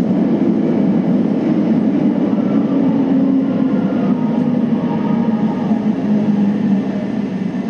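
Subway train running between stations, heard from on board: a steady rumble of wheels on rail with faint whining tones from the drive. It eases off slightly near the end.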